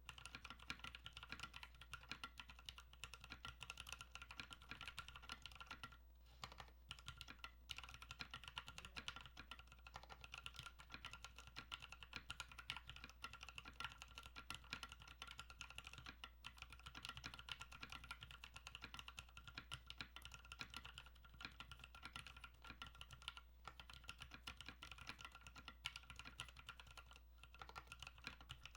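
Typing on a Tofu60 custom 60% mechanical keyboard with NovelKey Silk Red 70 g linear switches, an aluminium plate and HK Gaming 9009 keycaps: a fast, unbroken stream of key clacks, with a couple of brief pauses.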